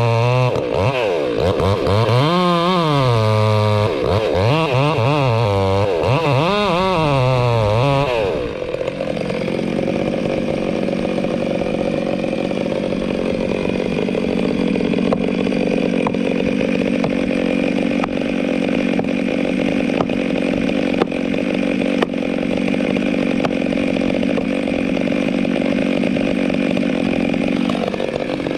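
Chainsaw revving up and down several times, then running steadily at a lower pitch under load as it cuts into the trunk for about twenty seconds.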